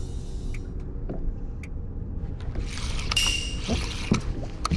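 Steady low rumble on a small fishing boat with water sloshing against the hull, a few light clicks, and a brief hiss of splashing water about three seconds in.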